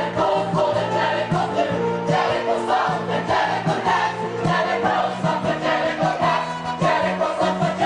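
Music with a choir singing over a steady beat and sustained bass notes.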